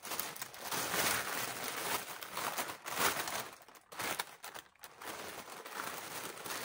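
Plastic shipping mailer bag rustling and crinkling as it is handled, in a run of rustles with short pauses about four seconds in.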